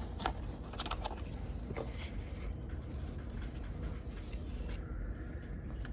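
A few faint, light clicks and rustles of handling over a steady low hum.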